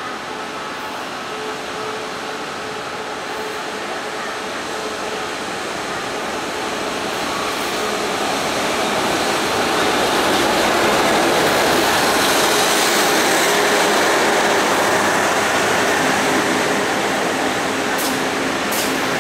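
Diesel-electric locomotive R135 drawing a passenger train slowly into the station. Its engine hum grows louder as it passes close, then the carriages roll steadily by, with two brief sharp high sounds near the end.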